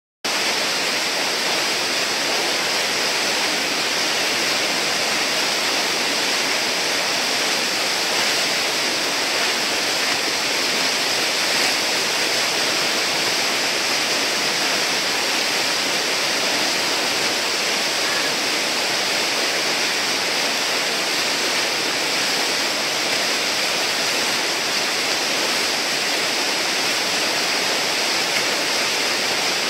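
River whitewater rushing steadily through a standing wave and hole. It makes an even, unbroken hiss at a constant level.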